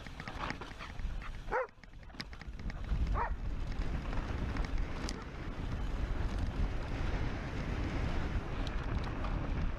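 A dog barks twice, about one and a half and three seconds in, then wind rushes steadily over the microphone as the mountain bike rolls along.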